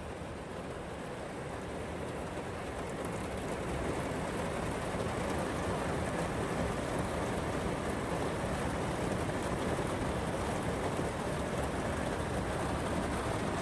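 Steady rain falling on a van, growing louder over the first few seconds and then holding even.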